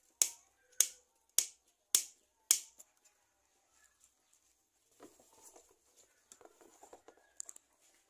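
Five sharp clicks, evenly spaced about once every 0.6 s, then softer rustling and scraping from hands handling the frame and string, about five seconds in.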